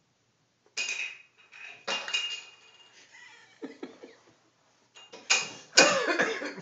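A plastic juice-bottle lid clattering on wooden stairs and floor as a cat bats it about. There is a sharp hit about a second in, more hits with a brief ringing rattle around two seconds, softer skittering, then the loudest cluster of clattering hits near the end.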